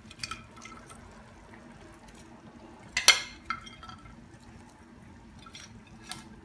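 Chicken pieces being moved from a glass bowl into a pan of sauce with tongs: a sharp clink of tongs and glass against the pan about three seconds in, with a few lighter taps and soft wet sounds of meat going into the sauce.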